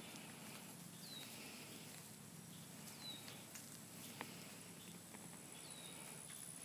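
Quiet outdoor ambience: a faint hiss under a thin steady high tone, with three short high chirps that fall in pitch, spaced about two to three seconds apart, and a faint click just after four seconds in.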